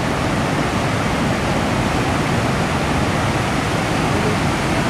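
Water pouring through a dam's open spillway gates and tumbling over the weir below: a loud, steady rush of water.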